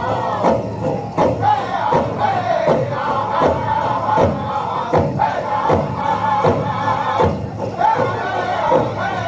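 Powwow drum group performing a prairie chicken dance song: several voices singing high, chant-like lines that slide downward, over a steady, even drumbeat about every three-quarters of a second.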